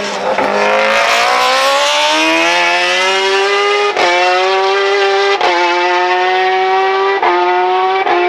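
A World Superbike racing motorcycle's engine accelerating hard out of a corner. Its note climbs steeply, then it changes up through the gears, with a brief dip at each of about four shifts.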